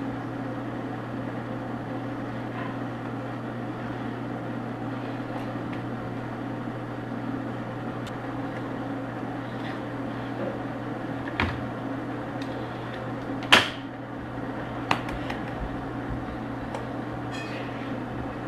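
Steady low mechanical hum, with three sharp knocks or taps, the loudest about thirteen and a half seconds in.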